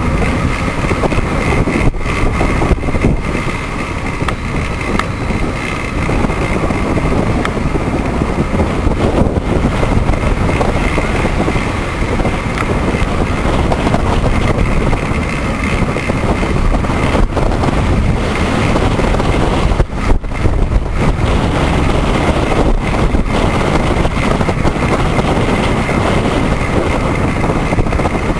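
Steady loud rush of wind buffeting the microphone of a camera on a moving bicycle, with road noise underneath and a thin steady high tone running through it.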